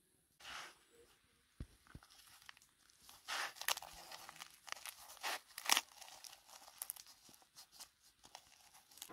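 Hand-handling noises: a run of short, irregular tearing and crackling sounds that grows busier about three seconds in.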